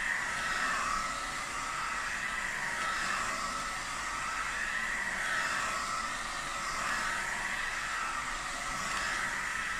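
Hand-held hot-air blower running on a medium fan and heat setting: a steady rushing hiss with a whine whose pitch wavers slowly up and down as it is moved around, drying fresh primer.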